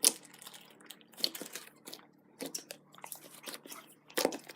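Slime being kneaded and stretched by hand, giving irregular wet clicks, pops and crackles, with a louder pop about four seconds in.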